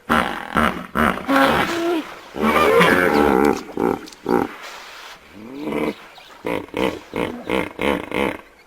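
A series of animal calls: loud pitched cries that bend up and down in pitch, one after another, with a quieter gap in the middle and a quick run of shorter calls near the end.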